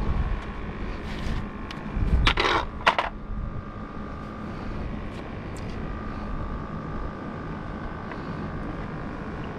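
A few sharp plastic clatters and knocks between one and three seconds in as a plastic fish measuring board is handled and set down on concrete, followed by a pompano being laid on the board. Behind them runs a steady outdoor rush with a faint steady hum.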